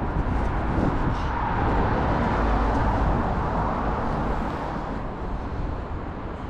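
Steady road traffic noise in the street, a continuous rumble that swells a second or two in and eases off near the end.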